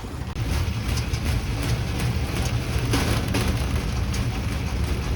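Rail bike's steel wheels rolling along the railway track: a steady rumble with continuous clattering.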